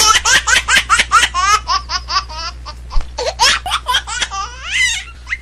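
A fast run of short, high-pitched laughs, like a baby's giggling, over a steady low hum.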